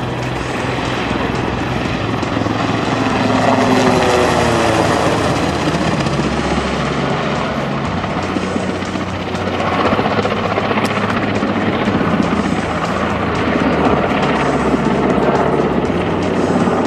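Super Puma helicopter flying a display pass: steady rotor and turbine noise, with a few shifts in pitch as it passes.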